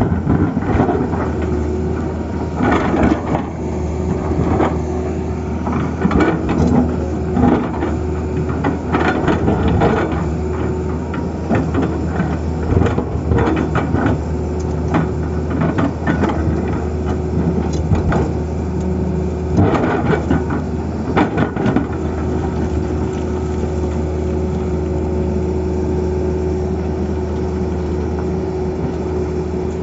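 Tata Hitachi excavator's diesel engine running steadily, with frequent sharp knocks and clatter through the first two-thirds, then running evenly without them near the end.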